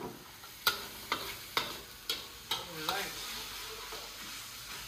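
Spatula scraping and knocking against a wok while stirring a spice paste frying in hot oil, which sizzles steadily. About six sharp scrapes come in the first three seconds, then only the sizzle.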